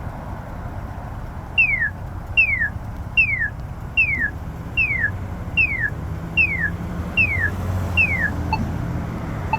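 Accessible pedestrian signal push button sounding its walk indication: a repeating electronic chirp, each a quick falling tone, nine in a row about 0.8 s apart starting a second and a half in, meaning the walk sign is on. Traffic rumble runs underneath.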